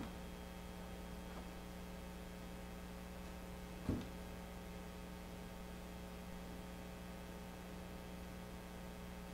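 Steady low electrical hum like mains hum, over a faint hiss, with one brief soft thump about four seconds in.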